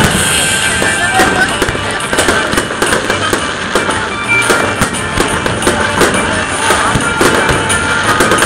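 Fireworks display: a dense, rapid run of bangs from bursting aerial shells and launches.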